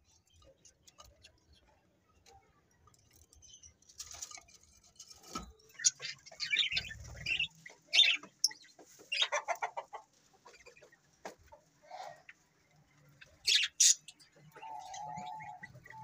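Lovebirds calling: short, sharp high-pitched chirps and screeches in scattered bursts, starting a few seconds in.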